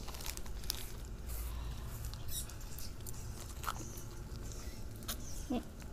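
Faint slurps, smacks and small clicks of two people sucking and biting on frozen homemade ice pops in plastic tubes.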